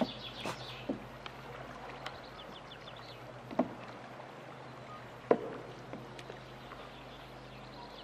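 Canoe paddling: scattered wooden knocks of paddles against a canoe hull, the loudest about five seconds in, over faint water noise.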